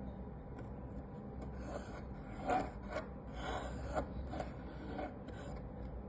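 Pencil lead of a drawing compass scratching across a bare wooden disc as circles are drawn, in a series of short scratchy strokes, loudest about two and a half seconds in.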